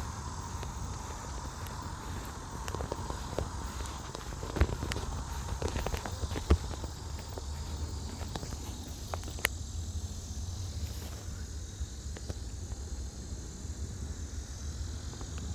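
Outdoor background noise: a steady low rumble with a few sharp knocks, the loudest about four and a half and six and a half seconds in.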